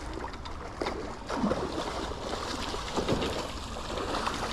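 Steady rush of flowing river water, with scattered clicks and knocks and a few short falling sounds about one and a half and three seconds in.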